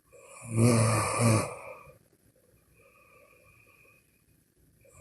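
Snoring: one loud snore starts about half a second in and lasts over a second, swelling twice. It is followed by a faint breath out, and the next snore begins at the very end.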